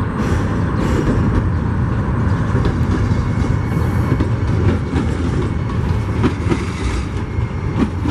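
Union Pacific freight train rolling slowly under the bridge: a steady rumble with frequent knocks of wheels clacking over the rails.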